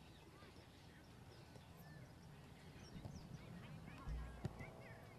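Faint outdoor ambience of scattered bird chirps, with a honk-like call near the end and a brief low rumble about four seconds in.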